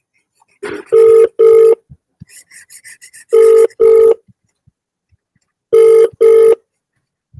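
Phone ringing with an incoming call in a double-ring pattern: two short rings, then a pause, repeated three times about every two and a half seconds.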